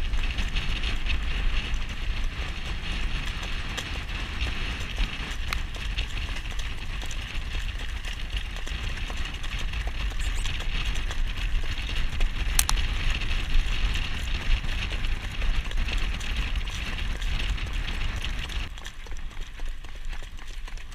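Hoofbeats of young Standardbred harness horses jogging on a road in front of jog carts, over a steady low rush of wind on the microphone. It grows a little quieter near the end.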